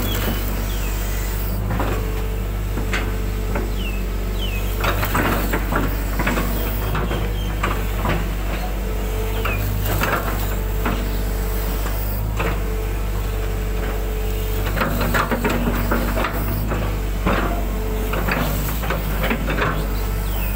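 Hitachi 120 excavator's diesel engine running steadily under load, with a whine that rises and drops away as the boom and bucket move. The steel bucket scrapes and knocks over and over as it is drawn across wet mud.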